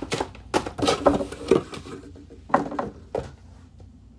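Packaging and small products being handled and moved about by hand: a quick run of knocks and rustles, then two more a second or so later.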